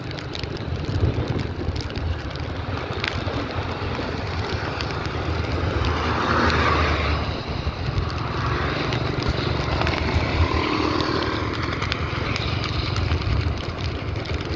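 Motorbike engine running while riding, under heavy wind rumble on the microphone, with a brief swell about six seconds in.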